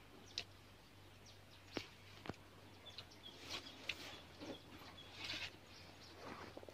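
Quiet outdoor ambience with short, high bird chirps, mostly in the middle seconds, and a few sharp light clicks and taps scattered through.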